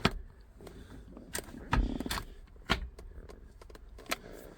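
Scattered sharp clicks and knocks from handling the Nissan 350Z's aftermarket short shifter assembly, with a heavier knock about two seconds in.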